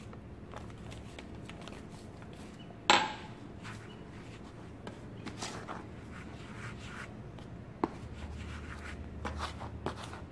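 Hands stirring and raking granular homemade laundry soap powder in a plastic tub, with soft scratchy rustling strokes. One sharp knock about three seconds in, and a smaller one near the end.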